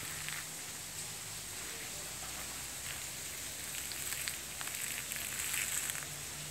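Light crunching footsteps on a sandy garden path, clearer from about four seconds in, over a steady outdoor hiss.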